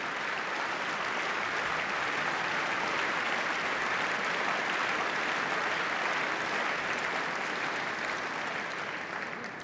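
Large crowd applauding steadily, fading away near the end.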